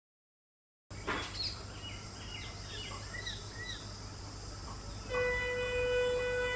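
Birds chirping over open-air ambience, then about five seconds in an approaching Indian Railways locomotive sounds its horn: one long blast held at a single steady pitch, the loudest sound here.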